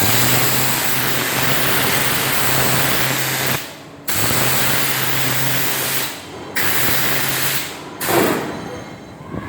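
Karcher HD 9/50-4 Cage 500-bar pressure washer blasting water at a concrete floor: a loud steady hiss of the jet over the pump's low hum. Jet and hum cut off suddenly three times, for about half a second each, as the trigger is let go and squeezed again.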